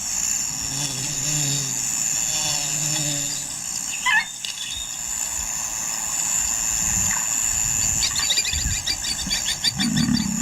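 Savanna ambience: insects buzzing steadily at a high pitch, with a low droning tone in the first few seconds. A brief high call about four seconds in, then rapid chirping near the end.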